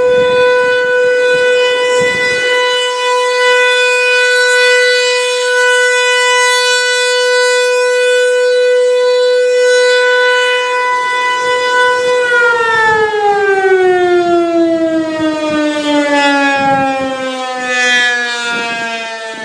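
ASC T-135 AC/DC rotating tornado warning siren sounding its steady alert tone, then winding down about twelve seconds in, its pitch falling smoothly and its sound fading toward the end.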